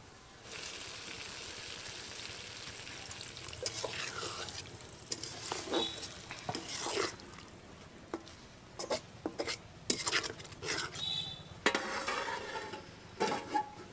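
Curry sizzling in a metal kadai while a metal spatula stirs and scrapes it against the pan in quick uneven strokes; near the end a metal lid clanks onto the pan.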